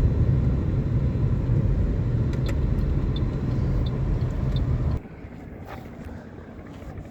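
Car driving on a road: a steady low rumble of engine and tyres, which drops away suddenly about five seconds in to a much quieter hum.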